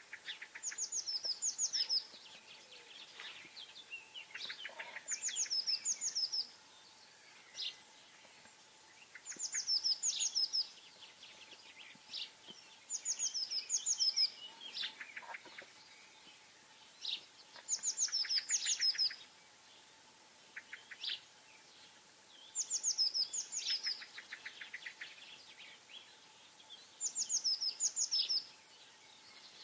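A songbird singing the same short phrase seven times, about every four to five seconds: each phrase is a few high, falling notes followed by a quick, lower trill.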